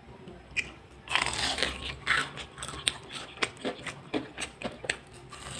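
Crisp deep-fried breadcrumb crust of a Korean cheese corn dog crunching and crackling in a quick, irregular run of crunches, starting about a second in.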